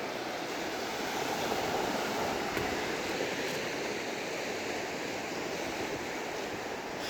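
Ocean waves breaking and washing up the beach, swelling slightly a second or two in, with some wind on the microphone.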